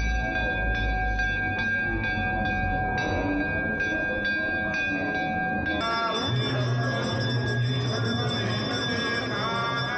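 Temple ritual music: bells ringing over steady, sustained tones. About six seconds in the sound changes abruptly and a low steady drone comes in, with gliding melodic tones above it.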